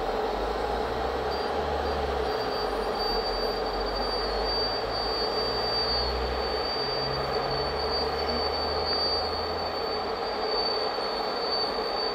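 Freight wagons of a long intermodal train rolling past on the rails, with a steady rumble and a high, thin wheel squeal that sets in about a second in and holds.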